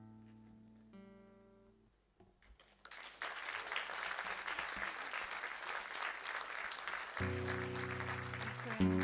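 Acoustic guitar's last chords ringing out and fading at the end of a song, a moment of near silence, then an audience applauding. About seven seconds in, the acoustic guitar starts strumming chords again under the applause.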